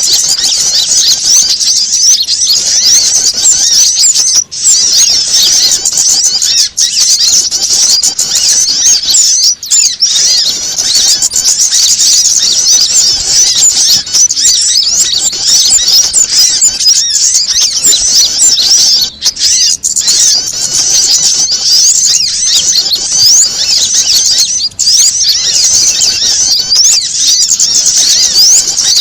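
Bird-lure recording of agitated small birds, mainly prinias and sunbirds: a loud, unbroken tangle of rapid, high, squeaky chirps and chatter, with a few brief dips. Its alarmed, noisy calling is meant to draw wild small birds in.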